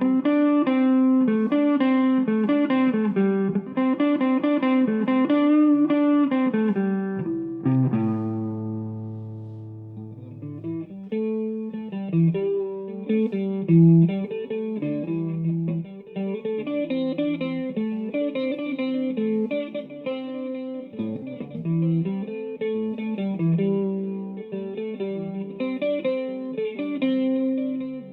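Electric guitar (a Vintage V100 Les Paul) played through a DigiTech GNX3 multi-effects user preset into an H&K Attax amplifier. A run of quick notes leads into a chord left ringing and fading about eight seconds in, then the single-note playing starts again.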